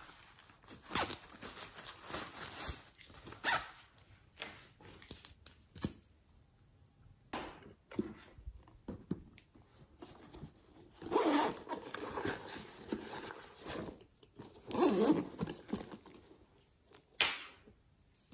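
A zipper drawn along a fuzzy chenille toy pouch, then scattered rustles and clicks from handling small plastic and silicone toys. Two louder scraping bursts come about two-thirds of the way in, and a sharp one near the end.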